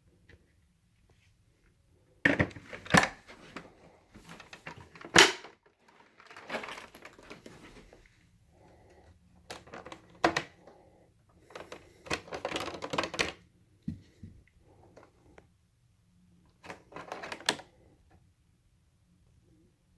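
Handling noises from an upright vacuum cleaner with its motor off: separate clicks, clacks and short rattles in about six groups, the sharpest click about five seconds in.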